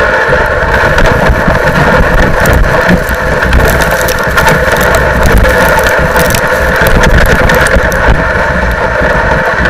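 SnowDog tracked motorized dog sled running steadily at speed over snow, its small engine and rubber track giving a loud, even drone with a low rumble.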